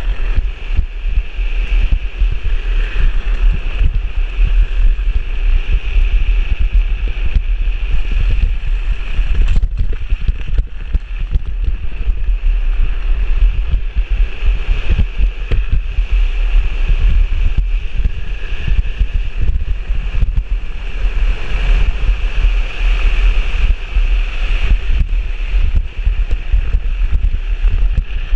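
Heavy wind buffeting the microphone of a drift trike rolling fast downhill, under a steady scraping hiss from its hard plastic rear wheels sliding on asphalt that swells and fades through the bends.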